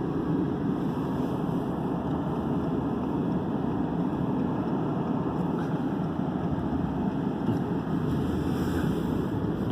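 A car being driven, heard from inside the cabin: a steady rumble of engine and tyre noise.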